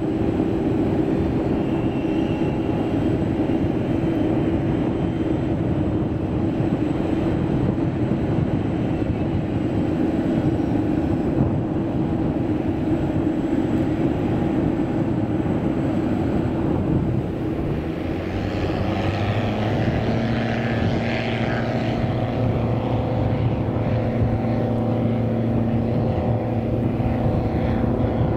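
ATR 72-500 turboprop's engines and propellers running at high power with a steady propeller tone. About two-thirds of the way through, the sound changes to another aircraft engine with a steady low hum and a rising whine.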